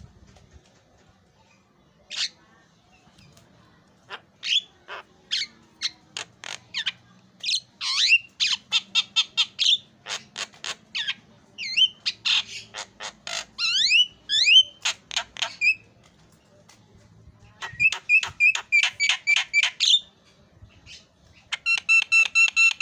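Javan myna singing: bursts of sharp clicks, chirps and sliding whistles in fast runs, a short pause, then more rapid notes, and near the end a quick run of repeated pitched notes.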